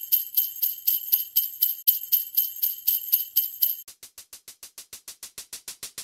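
Sleigh bells shaken in a steady rhythm, about four shakes a second. About four seconds in they drop to a quieter, faster pattern of light shakes.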